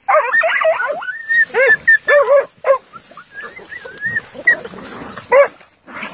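Hunting dogs yelping excitedly on a chase: a quick string of short, arching yelps at the start, thin high whines about a second in and again around three to four seconds, and more yelps in between and near the end.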